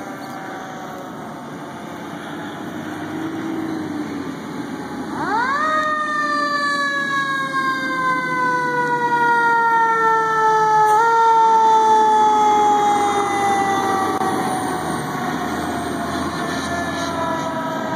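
E-One aerial ladder fire truck responding with its siren: the siren winds up sharply about five seconds in, then slowly falls in pitch, with a short boost about eleven seconds in, over the truck's engine as it drives past.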